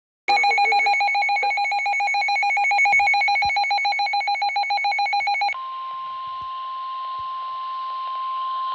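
Emergency alert tones: a loud, fast-warbling electronic alert sounds for about five seconds, then switches to the steady single-pitch NOAA Weather Radio warning alarm tone, which signals a new warning, here a tornado warning.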